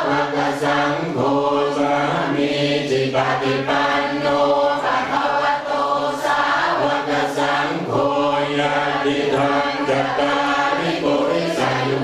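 Thai Theravada Buddhist monks chanting together in unison, a continuous group chant on held, steady pitches.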